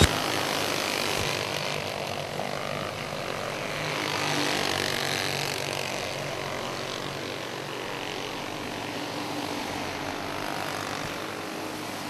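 A pack of champ karts racing on an oval, their small engines buzzing together at speed. The sound swells as the karts pass about four seconds in, then slowly fades.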